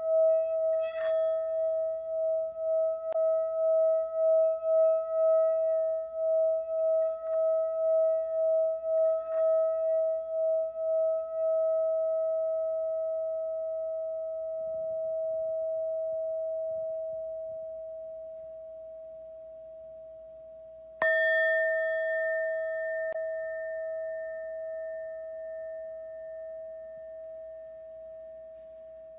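Singing bowl ringing with a pulsing, wavering tone that slowly fades, then struck again about two-thirds of the way through and left to ring down.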